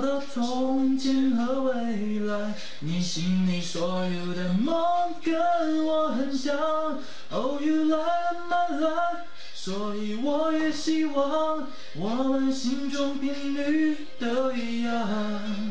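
A man singing a slow melody in long held notes, sliding up into some of them, with short breaks between phrases.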